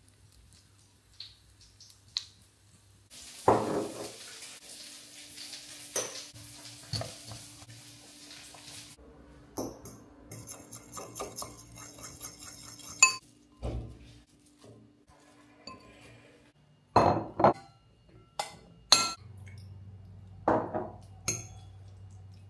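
Kitchen cooking sounds. Breaded cutlets sizzle in oil in a frying pan for several seconds. Then a fork clinks quickly against a ceramic bowl as it beats, and near the end cutlery clinks and knocks on a plate.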